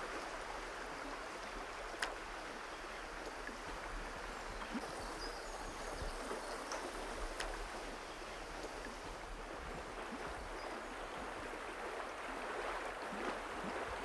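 Shallow river running over a rocky riffle: a steady rushing of flowing water, with a few faint clicks.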